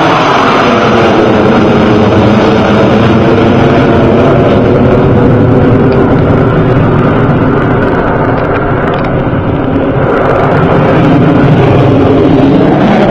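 Avro Vulcan's four Rolls-Royce Olympus turbojets running at take-off power: a very loud, continuous jet roar that eases slightly about two-thirds through and swells again near the end.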